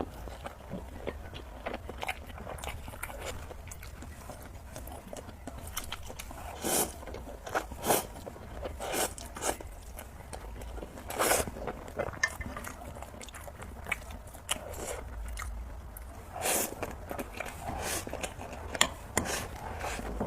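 A person eating spicy noodles: chewing and biting with many irregular wet smacks and clicks.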